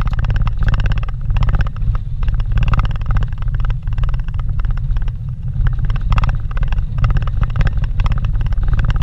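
Cabin noise of a vehicle driving on a dirt road: a steady low rumble of engine and tyres, broken by frequent small knocks and rattles as it goes over bumps.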